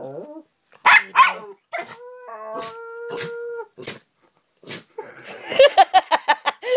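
A pet dog vocalising: a few sharp noisy bursts, a held howl in the middle, then a fast run of yips and grumbles near the end.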